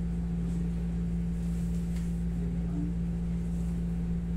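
Steady low hum of a running window-type air conditioner, with a few faint soft ticks over it.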